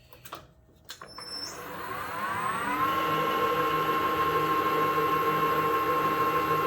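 ERL-1340 metal lathe switched on with a click, its motor and gearing whining up to speed over about two seconds, then running steadily under power feed with the half-nut engaged as the tool takes a first 0.01-inch threading pass. The whine cuts off near the end as the proximity stop shuts the lathe down.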